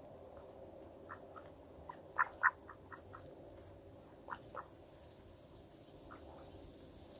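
Mallards and rock pigeons feeding on the ground: short, soft croaky sounds in a few quick runs, the busiest run about two to three seconds in, over a low steady background.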